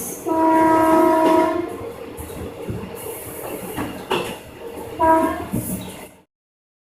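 Korail Class 8200 electric locomotive sounding its horn: one blast of about a second and a half, then a shorter blast about five seconds in, with train running noise and a sharp click between them.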